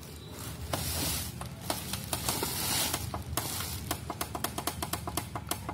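The Up button on the back of an Ajanta DC-017 digital wall clock being pressed over and over, a string of small plastic clicks that speeds up to several a second in the second half, stepping the date setting upward. Rustling from the clock being handled comes along with the first few clicks.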